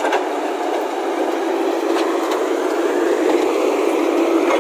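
JCB backhoe loader's diesel engine running under load as its front bucket pushes broken asphalt, a steady mechanical drone with a hum that grows louder about three seconds in, and a few clicks of rubble.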